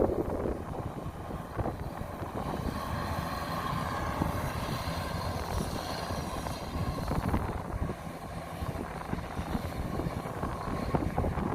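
Kubota DC-93 combine harvester running steadily while harvesting rice in a flooded paddy: a continuous engine drone.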